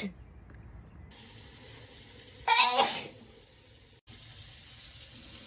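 A person sneezing once about two and a half seconds in: a short, sharp 'achoo' with the voice falling in pitch, one sneeze in a repeated sneezing fit.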